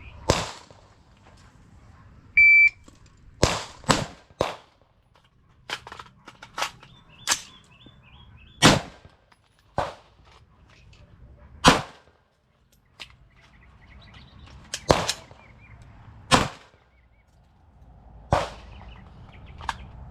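A shot timer's short start beep, then a string of gunshots, fired singly and in close pairs with pauses between them as the magazine is changed, during a one-round, reload, one-round drill.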